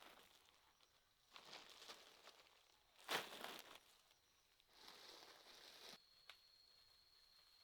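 Faint rustling, three soft bursts each under a second long, the clearest about three seconds in. A thin steady high whine comes in near the end.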